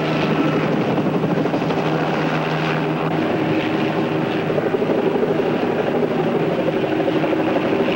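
Steady engine noise with several held pitched hums. The lowest hum drops out about three seconds in.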